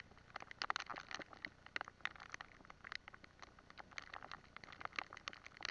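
Rain patter: irregular, sharp drop ticks, thickest about a second in.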